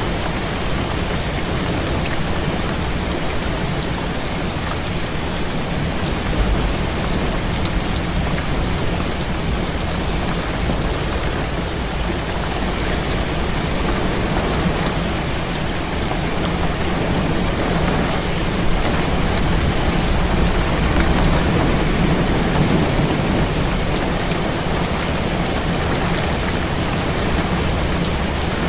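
Heavy rain falling steadily, a dense hiss with many small drop ticks, and a low rumble of thunder swelling about two-thirds of the way in.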